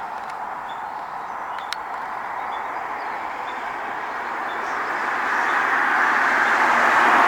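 Road noise of a car, a steady rushing of tyres on pavement that grows louder over the last few seconds as it nears.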